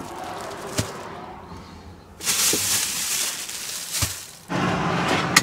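Groceries being handled: a plastic produce bag rustling for a couple of seconds as food is taken from a small fridge and set on a wooden counter, with a few sharp knocks and clicks. A steadier noise with a low hum comes in near the end.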